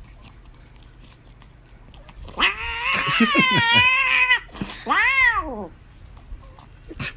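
A grey-and-white cat giving two loud meows while being fed a squeeze-tube treat: a long yowl with its pitch wavering up and down about two and a half seconds in, then a shorter meow that rises and falls.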